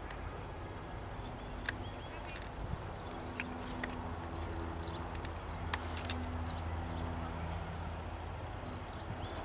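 Hoofbeats of a horse cantering on grass and jumping a fence, faint under a steady low hum, with scattered sharp clicks and bird chirps.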